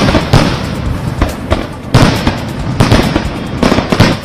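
Aerial fireworks going off: a rapid run of sharp bangs, several a second, over continuous crackling from bursting shells.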